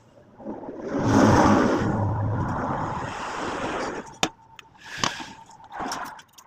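Air rushing out of a balloon's nozzle on a balloon-powered toy car, with a faint steady whistle in it, rising quickly and fading over about three seconds. Several sharp clicks and short knocks follow.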